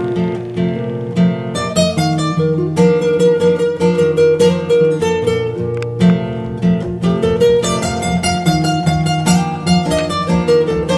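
Background music: a plucked acoustic guitar playing a stream of quick picked notes.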